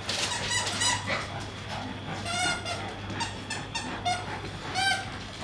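Two Staffordshire bull terrier pups playing over a toy: a string of short, high-pitched squeaks, about a dozen, some dropping slightly in pitch.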